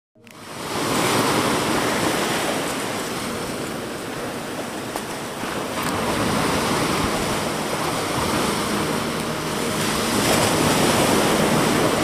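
Small ocean waves washing up onto a sandy beach, a steady hiss of surf that swells and eases as each wave comes in and drains back. It fades in over the first second.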